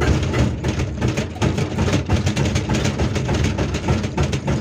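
Hydraulic breaker on a Hyundai R480LC-9S excavator hammering rock with rapid, even blows, starting abruptly, over the excavator's diesel engine running, heard from inside the operator cab.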